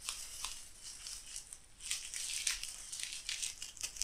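Plastic bubble wrap crinkling and rustling in irregular bursts as it is handled and pulled open around new fishing rods.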